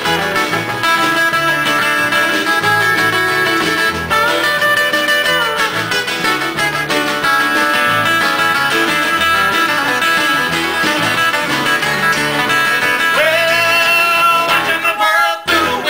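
Live band playing country-style acoustic music, led by strummed and picked acoustic guitars over a bass line. A singing voice comes in near the end.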